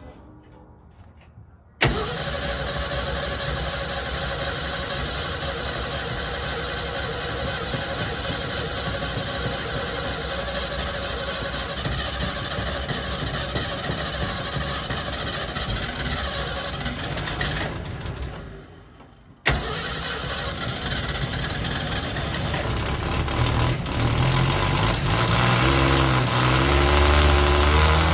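Ford Falcon engine cranking over on the starter for about sixteen seconds to pull fuel up to the filter, then cranking again after a short stop. A few seconds later it catches and runs, its pitch rising and falling as it revs.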